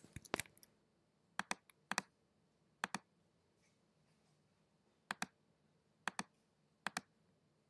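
Faint clicks of a computer's pointer button: a few quick ticks near the start, then six clicks, each a close double tick as the button presses and releases, spaced about a second apart with a longer gap of about two seconds in the middle.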